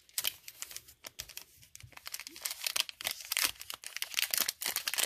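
Foil wrapper of a Panini Rookies and Stars football card pack crinkling and tearing as it is pulled open by hand: a dense run of irregular crackles that gets busier in the second half.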